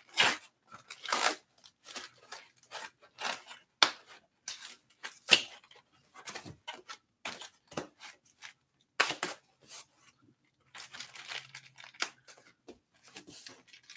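Protective packaging wrap being torn and crumpled off a new e-bike's frame by hand, in a string of irregular rustles and rips.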